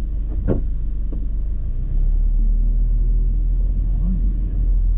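Subaru Impreza WRX STI's turbocharged flat-four engine and road noise while driving: a steady low rumble that gets a little louder about two seconds in, with a brief thump about half a second in.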